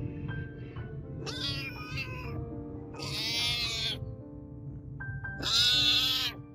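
A hungry stray cat meowing for food, three drawn-out meows about a second and a half apart, the last the loudest, over background music.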